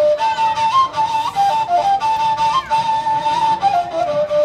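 Sring, an Armenian folk flute, playing a lively melody of quick notes and trills that steps down to lower notes near the end.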